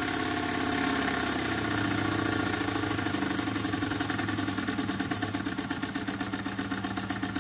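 RETROL SE-02 model horizontal steam engine running fast on compressed air, its exhaust beating in a rapid, even rhythm.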